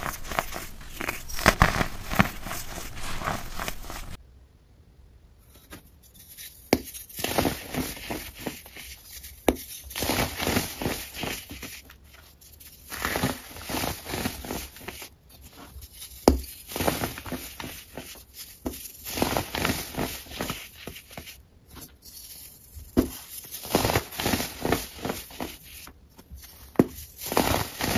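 Hands crushing and crumbling dry molded baking soda blocks: repeated crisp crunches and gritty crumbling of the powdery chalk-like shapes, with a brief lull about four seconds in.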